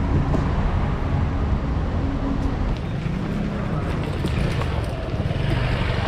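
City street ambience: road traffic running past, with people talking in the background.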